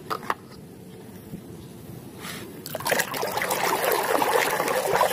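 Two light knocks at the start, then a hand sloshing and scrubbing in a basin of muddy water. The splashing grows louder from about three seconds in.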